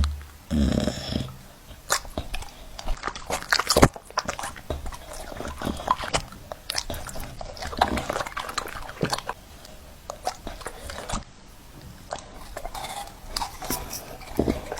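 A dog's noises with many short sharp clicks and knocks, like biting or chewing.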